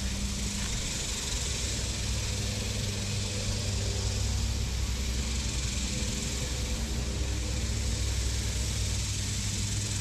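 Boat motor running steadily: a continuous low hum over an even hiss.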